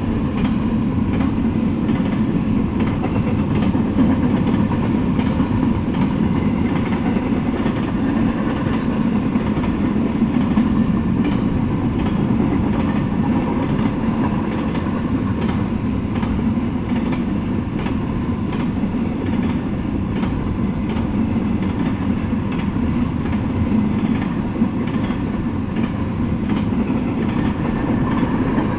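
Freight train cars rolling past at speed: a steady rumble of steel wheels on the rails, with faint repeated clicks running through it.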